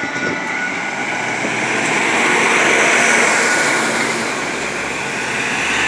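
Heavy diesel lorries driving past one after another, the engine and road noise swelling as each goes by and loudest about halfway through.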